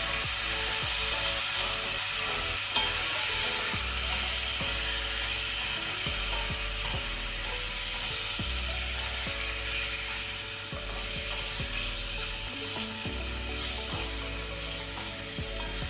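Chicken wings frying in hot oil in a pan while being stirred: a steady sizzling hiss with a few faint knocks of the spoon.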